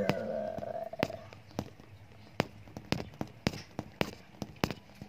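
A series of sharp clicks or taps, about a dozen, coming at irregular intervals and bunching closer together in the second half.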